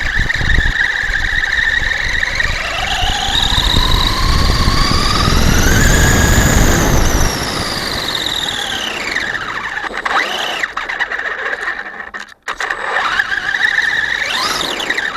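Electric RC monster truck's motor whining under throttle. The pitch climbs steadily for a few seconds as the truck speeds up, then falls away, with tyre and ground rumble under it. Shorter rises and falls follow near the end as the throttle is blipped.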